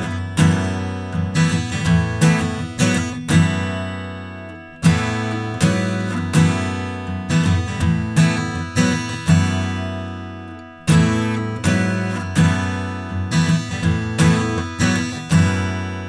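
Steel-string acoustic guitar strummed hard, picked up by a microphone and run through the Universal Audio Volt 276 interface with its built-in 76 compressor on. Each phrase opens with a loud strum and rings out over quicker strums, about every five to six seconds, as the compressor is switched from its vocal preset to its guitar preset and then to its fast preset.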